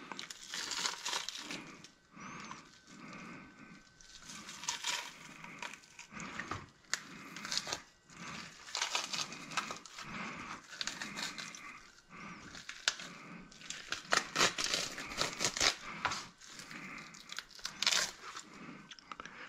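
Wet tearing, crackling and squishing as a yellow perch is pulled apart by hand, its skin and meat peeled back off the spine, with irregular clicks and rustles.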